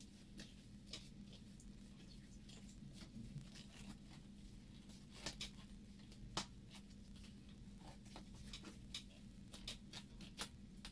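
Faint, irregular light clicks and taps from hands working a bicycle tyre and inner tube onto a wheel rim, over a low steady hum.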